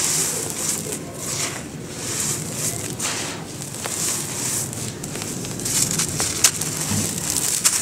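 Dry sand clumps crumbled in the hands, the grains pouring out in a fine hissing trickle that swells with each squeeze, with soft crunches. Around six seconds in a harder chunk breaks with a few sharper crackles.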